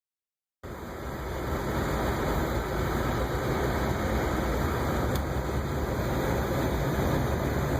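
Steady running noise of a car heard from inside the cabin: a low engine hum under an even rush. It starts just under a second in.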